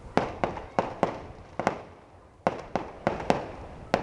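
Fireworks going off: a rapid, irregular string of about a dozen sharp bangs, each with a short fading tail, with a brief pause about halfway through.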